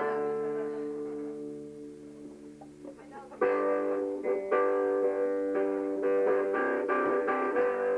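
Live band music: a held guitar chord rings and fades. About three and a half seconds in, a guitar starts a steady strummed chord pattern.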